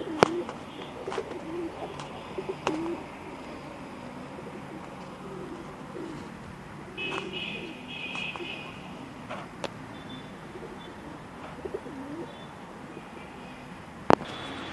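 Domestic pigeons cooing repeatedly in low, rolling calls, with a brief higher chirping call about halfway and a few sharp clicks or taps now and then.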